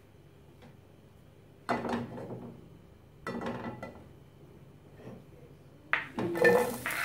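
Kitchen utensils clatter twice. Then, near the end, chopped red onion and garlic are scraped off a wooden chopping board into hot oil in a nonstick pan: a sudden loud sizzle with sharp knocks from the knife on the board.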